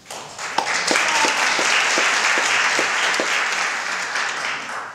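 Audience applauding, starting just under half a second in and fading out near the end, with one nearby clapper's evenly spaced claps standing out above the rest.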